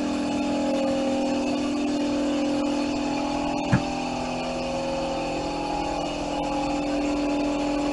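Air compressor running steadily while a spray gun hisses out contact adhesive, with one short knock near the middle.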